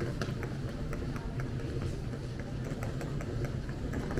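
Regular walking footsteps on a hard stone-tiled floor, over a steady low hum in a large terminal hall.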